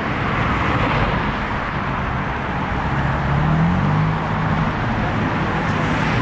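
Road traffic on the adjacent roadway: a steady noise of tyres and engines, with an engine hum rising a little in pitch about halfway through and then holding.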